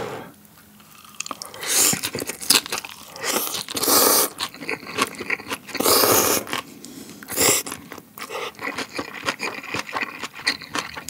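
Close-miked eating of spicy jjolmyeon noodles: several long slurps of the noodles, then quick, crisp crunching as raw bean sprouts and cabbage mixed into the noodles are chewed.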